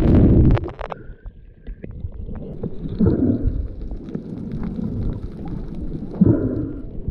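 Muffled sea noise heard through a submerged camera: a steady low rumble with scattered clicks, loudest in a burst of bubbling and clicks at the start, swelling again about three and six seconds in.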